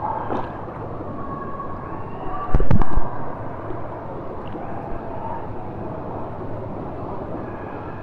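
Pool water sloshing and splashing around a camera held at the surface, with a loud burst of water noise on the microphone lasting about half a second, between two and three seconds in.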